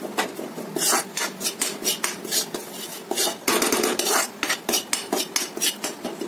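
Metal spoon scraping and stirring crumbly butter-and-flour roux against a metal kadhai as the flour is roasted. The strokes come quick and repeated, about three a second, with one longer scrape a little past halfway.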